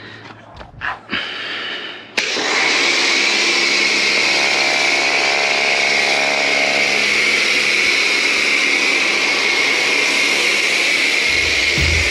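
A pressure washer is switched on about two seconds in, and its pump runs steadily while the water jet sprays against the vehicle. Before it starts there are a few short handling knocks and rustles.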